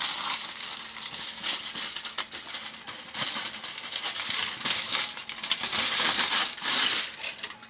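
Sheet of aluminium hookah foil crinkling and rustling as it is handled and folded, a dense crackle that is loudest near the end.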